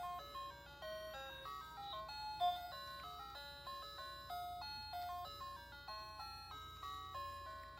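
Electronic toy tune from a Fisher-Price Little People school bus: a quick, simple melody of clean single notes that stops near the end.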